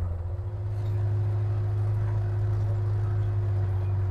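A vehicle engine running steadily: a constant low drone with a faint steady higher tone above it.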